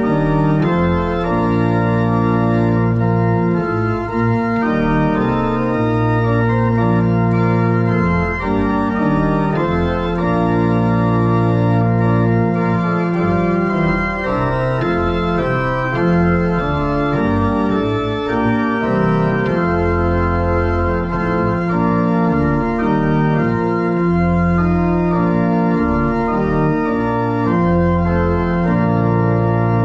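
Church pipe organ playing slow, sustained chords with held bass notes, the chords changing every second or two.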